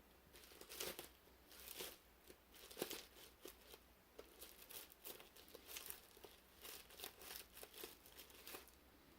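Plastic bubble wrap being pulled off and unwrapped by hand: a faint run of irregular crinkles and crackles that stops shortly before the end.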